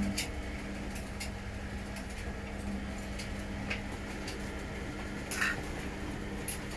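Washing machine running a hot-wash test cycle: a steady motor hum under a low rumble, with scattered clicks and clinks and a louder rattle about five and a half seconds in.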